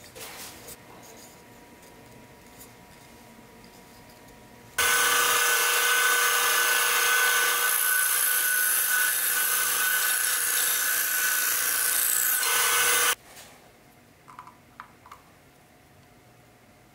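Benchtop band saw running and cutting through the end of the hickory axe handle that sticks out of the axe head's eye: a loud, steady whine that starts abruptly about five seconds in and stops abruptly after about eight seconds. Light handling clicks before and after.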